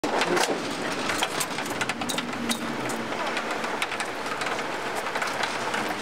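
Street traffic noise, steady, with scattered sharp clicks and knocks.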